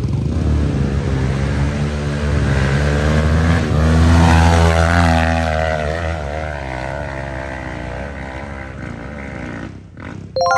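KTM adventure motorcycle engine revving on the move. The pitch climbs from about two seconds in to a peak around four to five seconds, then eases back and runs steadier, dipping briefly near the end.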